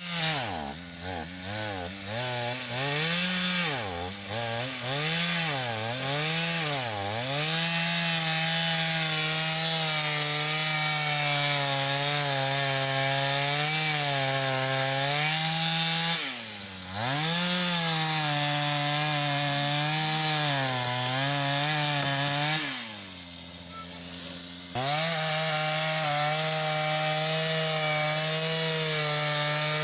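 Chainsaw engine revving up and down several times, then held at high speed, as when cutting wood. It drops in speed briefly about sixteen seconds in and again for about two seconds near the twenty-third second, before picking back up.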